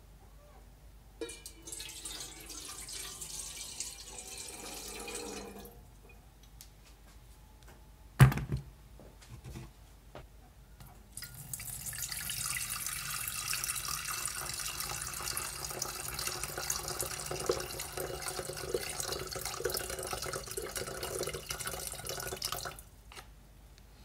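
Water poured from a jug into an empty glass electric kettle, an even splashing pour lasting about eleven seconds in the second half. Before it, a shorter stretch of water sound and a single sharp knock about eight seconds in.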